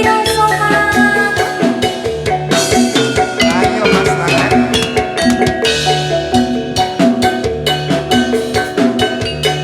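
Live jathilan accompaniment music: tuned mallet percussion playing repeated melodic figures over steady drumming.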